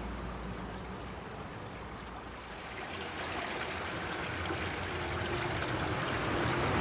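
Steady hiss-like rail and track noise that grows gradually louder over the last few seconds as a 475-series electric train approaches along the line.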